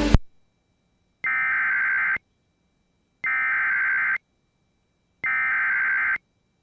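Emergency Alert System SAME header data bursts: three identical raspy electronic warbles, each just under a second long, with about a second of silence between them. They encode the coded header of a new alert.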